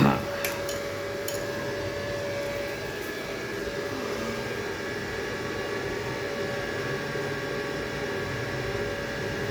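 A sharp knock, a few light clicks, then a steady electric fan hum with a constant whine.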